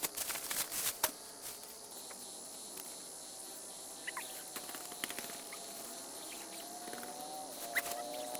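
Outdoor night ambience of insects trilling steadily, with a few short chirps and a burst of rustling crackles in the first second.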